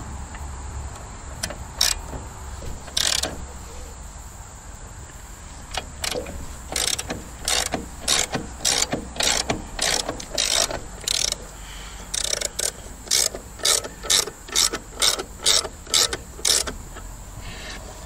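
Hand-worked log-support mechanism on a sawmill bed clicking like a ratchet, with a few single clicks, then a steady run of about two clicks a second for roughly ten seconds as it is cranked.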